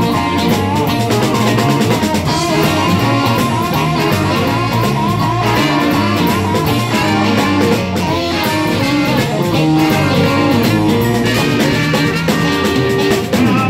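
Live blues band playing an instrumental passage: electric guitars over bass and drum kit, with saxophone, a wavering lead line running through the middle.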